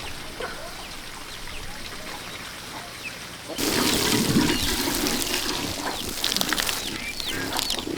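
Faint background, then about three and a half seconds in a sudden loud rush of water with crackly splashing.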